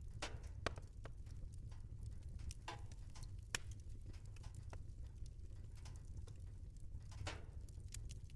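Wood fire crackling in a fireplace: irregular sharp pops and snaps over a steady low rumble, with the loudest pops just under a second in and a little before the midpoint.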